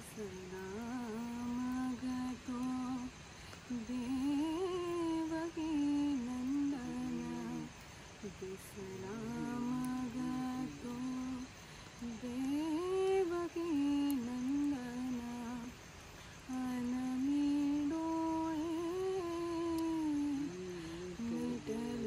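A voice humming a slow tune, in phrases of three to four seconds with short breaks between them.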